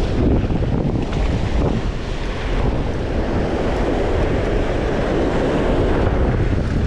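Wind buffeting the camera microphone over surf washing across a flat reef shelf, a steady rushing noise with a low rumble that swells a little in the middle.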